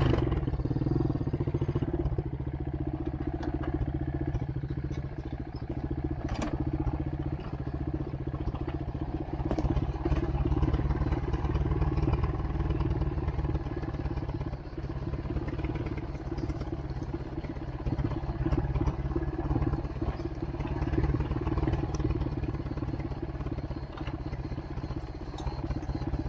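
ATV engine running steadily while riding a rough dirt track, heard from the rider's seat, the level rising and dipping a little with the throttle. A few sharp knocks cut through it along the way.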